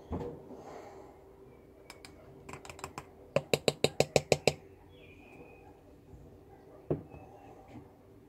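A metal wire holding a lead jig head tapped against the rim of a glass jar of powder coating: a few light taps, then a fast run of about ten sharp clicks in about a second, and one more single knock near the end.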